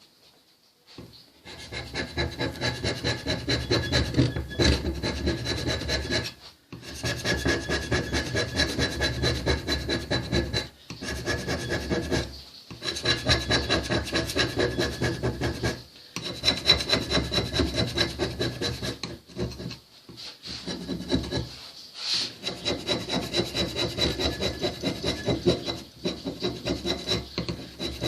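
Hand scraper strokes on the milling machine's guideways, a quick rhythmic scratching of about three to four strokes a second. The strokes come in runs broken by short pauses, as the ways are hand-scraped to true their geometry.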